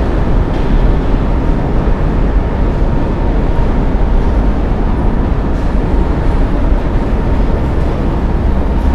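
Loud, steady rumbling noise, heaviest in the lowest range, with no distinct events or tones.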